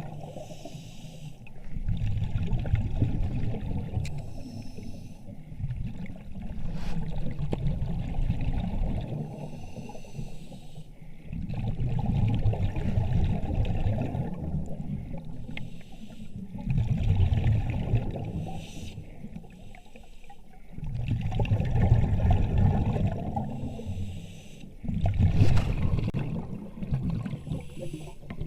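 A diver breathing on surface-supplied air: a rush of breath through the mask or helmet, then exhaled bubbles gurgling out, repeating about every four to five seconds.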